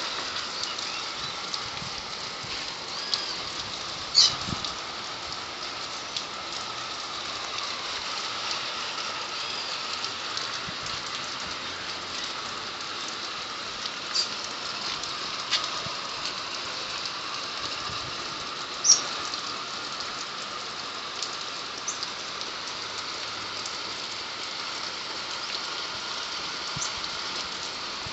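Steady rain falling, an even hiss, with a few sharp louder ticks of drops striking something, the loudest about 4 and 19 seconds in.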